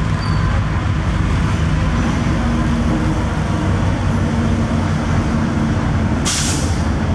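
Babaranjang long coal train rolling past, a steady loud rumble of the wagons on the rails. A short hiss cuts in about six seconds in.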